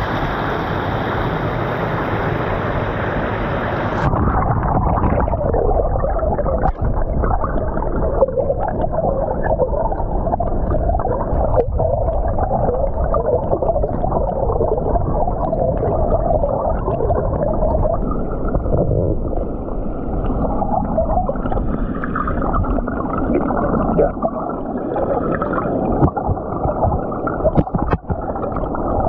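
Water rushing over a concrete spillway. About four seconds in, the sound turns muffled as it is heard from underwater: churning, bubbling turbulent water below the falls, with a few brief knocks.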